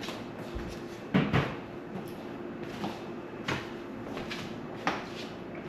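A few knocks and clunks of household things being handled and set down, the loudest a double knock about a second in, with a faint steady hum underneath.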